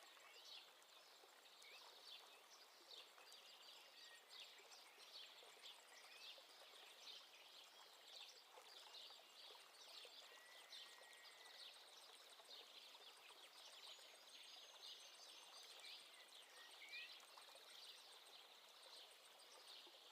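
Faint chirping of small birds, many short high calls in quick succession, with a couple of longer whistled notes about halfway through.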